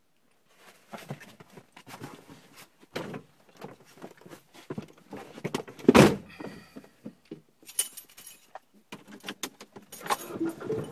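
Clatter of knocks, rustling and metallic jingling as a dog climbs onto a car seat and a person settles in beside it, with one heavy thump about six seconds in.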